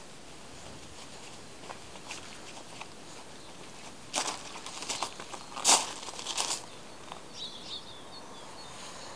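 Footsteps crunching on gravel, about four sharp steps in the middle, over a steady outdoor hiss; a bird chirps briefly near the end.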